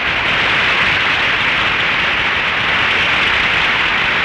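Loud, steady hiss of static on an old radio broadcast recording, with no speech or music.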